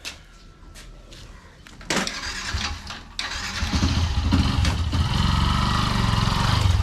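Motorcycle engine being started: it turns over about two seconds in, catches about three seconds in, and then runs at a steady idle.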